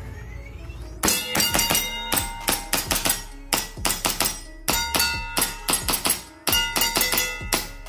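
EMG Taran Tactical Sand Viper gas-blowback airsoft pistol fired in several quick strings of shots, the slide cycling with each shot, starting about a second in with short pauses between strings.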